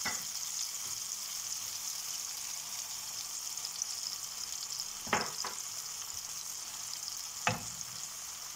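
Green peppers, tomato slices and eggs frying in oil in a pan, a steady sizzle. A few sharp clicks stand out: one at the start, two close together about five seconds in, and one near the end.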